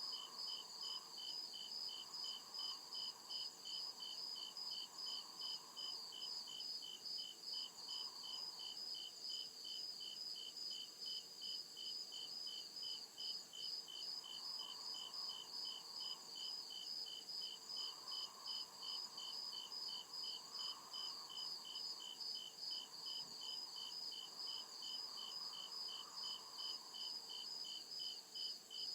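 Crickets chirping in a steady, even, fast rhythm of high-pitched pulses, with no break.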